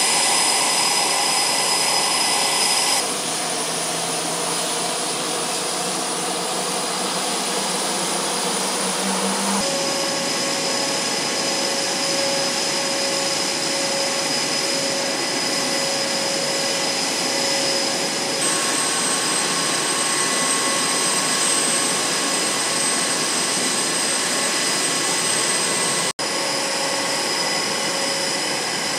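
F/A-18 Super Hornet jet engines running on the flight line: a steady roar with a high-pitched turbine whine. The sound shifts abruptly a few times and drops out for an instant near the end.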